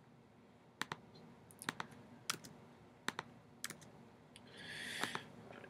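Computer keyboard typing: scattered single keystrokes, sharp separate clicks at an uneven pace, with a brief soft hiss about five seconds in.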